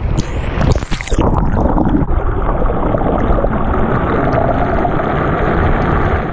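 Breaking surf splashing over a microphone at the waterline for about a second, then the muffled rush and churn of turbulent water and bubbles as it goes under the white water.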